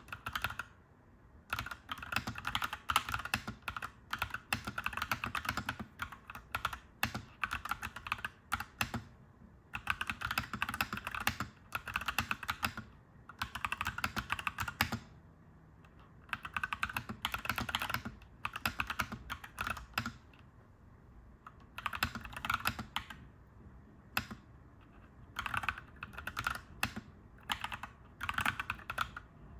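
Clacky mechanical keyboard being typed on in quick runs of keystrokes, each a few seconds long, broken by short pauses, over a faint low steady hum.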